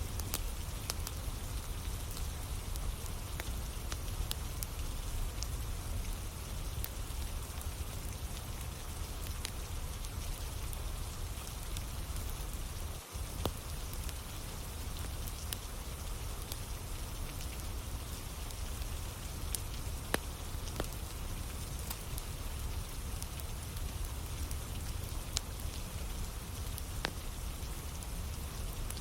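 Steady rain falling together with a wood fire burning, sharp crackles and pops scattered through the rain's hiss. The sound drops out briefly about 13 seconds in.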